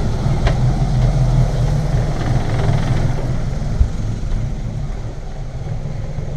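Bayliner 3288 motor cruiser's twin inboard engines idling steadily, heard from inside the cabin, with one low thump a little past the middle.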